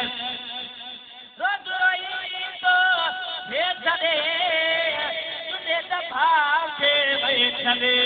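A man singing a devotional chant into a microphone, in long melismatic phrases with held, wavering notes and sliding pitch, after a brief pause about a second in.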